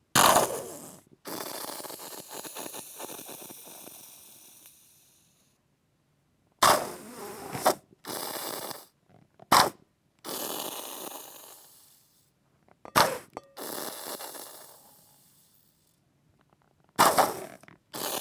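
Squeeze sauce bottle squirted again and again as a wet, diarrhea-style fart effect: each squirt opens with a sharp splutter, and most trail off in a long, fading run of rapid crackling spurts. There are about six squirts with silent gaps between them, some short, others lasting several seconds.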